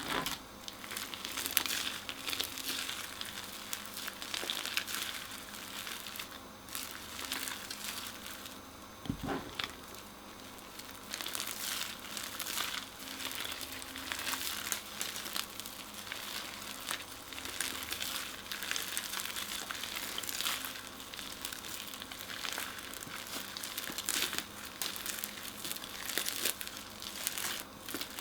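Crunchy slime being squeezed and worked in hands and plastic piping bags: a dense, uneven run of small crackles and crinkles, with one duller thump about nine seconds in.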